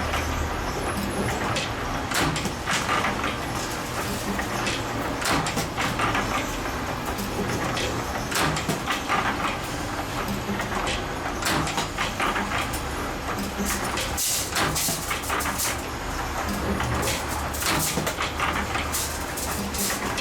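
Spring-making machinery running, with frequent irregular sharp clicks and metallic knocks over a steady mechanical noise and an intermittent low hum.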